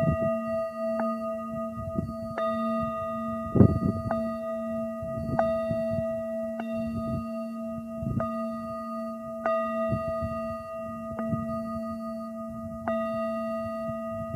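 A handheld singing bowl struck over and over, about once every one to two seconds, each strike renewing a sustained, layered ringing that never dies away between strokes.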